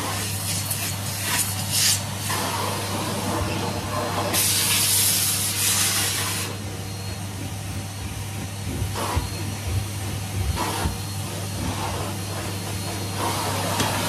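Vacuum cleaner running with its crevice tool: a steady motor hum under rushing air. The air rises to a louder hiss for about two seconds near the middle and shifts as the nozzle moves, with a few brief clicks.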